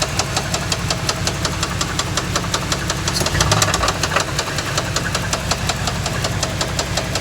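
A 1987 Camaro IROC-Z's V8 engine running with a steady, rapid knock ticking over the engine hum. Mechanics judged the knock serious enough that the engine has to be replaced.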